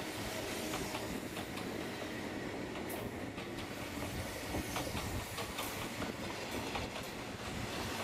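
Electric limited-express train cars rolling slowly past at close range: steady rumble of the running gear, with irregular clicks of wheels over rail joints.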